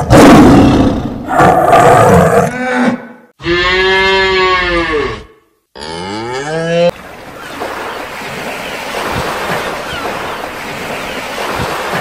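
A tiger's rough growl for about two and a half seconds, then two cattle moos: the first long, arching up and down over almost two seconds, the second shorter and rising in pitch. A steady hiss fills the last five seconds.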